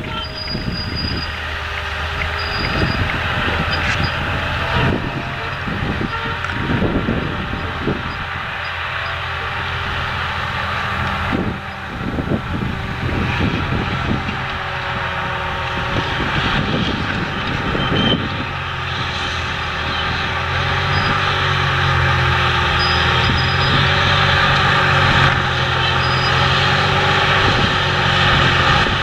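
John Deere 7280R tracked tractor's diesel engine running steadily under load as it pulls a cultivator through the soil, with the clatter and rumble of its rubber tracks and the implement. Scattered knocks come through in the first two-thirds, and the sound grows louder toward the end as the tractor draws close.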